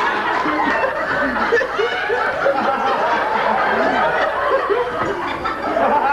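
Theatre audience laughing, many voices chuckling and laughing at once.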